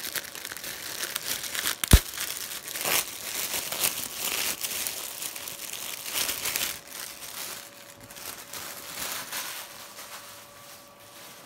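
Clear plastic packaging bag crinkling and rustling as it is handled and pulled open, with one sharp, loud snap about two seconds in. The crinkling thins out and quietens over the last few seconds.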